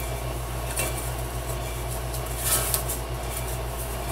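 Small thin pieces of cut wood handled by hand on a metal saw table: a soft scrape about a second in, then a longer scrape ending in a small click about two and a half seconds in, over a steady low hum.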